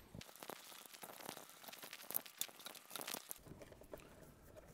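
Faint rustling and scattered light clicks of a bundle of wires being handled and pushed into a motorcycle fairing's headlight bucket, with a few sharper ticks past the middle.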